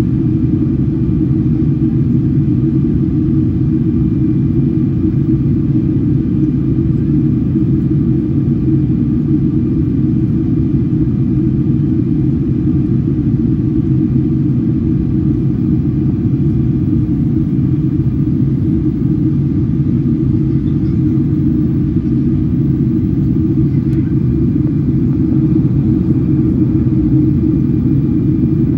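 Steady cabin noise inside a Boeing 777-300 in flight: a dense low rumble of airflow and engines, with faint steady whining tones above it.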